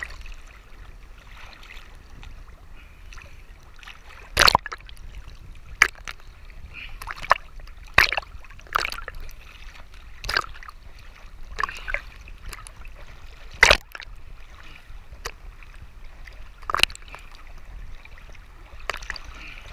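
Small waves lapping and slapping against a waterproof camera held at the water's surface: about a dozen sharp, irregular slaps over a steady low wash of water.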